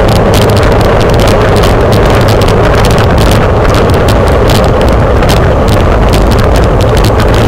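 Wind buffeting the microphone of a camera on a racing bicycle at speed, with a steady rumble of tyres over jointed concrete and many quick sharp clicks and rattles.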